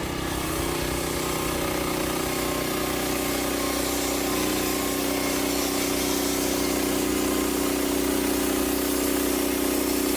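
Portable band sawmill running: its small gasoline engine held at a steady high speed, driving the band saw blade, with an even hiss over a steady engine tone.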